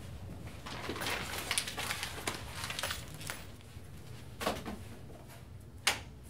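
Keys jangling and a door latch rattling as an office door is unlocked and opened. There is a knock about two-thirds of the way in and a sharp click near the end.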